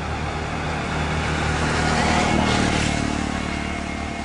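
Motor vehicle noise: a steady engine hum, swelling to its loudest around the middle and easing off again, as of a vehicle passing close by.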